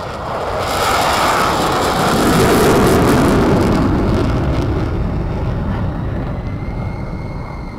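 F-16 fighter jet's engine roaring as it takes off and climbs away. It swells to its loudest a couple of seconds in, then slowly fades.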